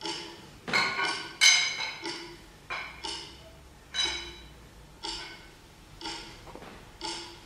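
A series of ringing metallic clangs, about a dozen at an uneven pace of one to two a second, each a sharp strike followed by a pitched ring that dies away; the loudest comes about a second and a half in.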